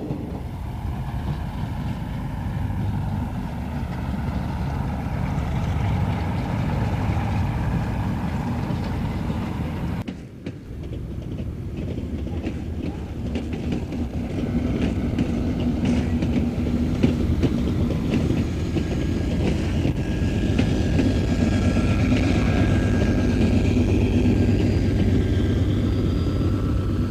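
Diesel train running past on the line, a steady rumble with engine tones. It drops away briefly about ten seconds in and then builds up again.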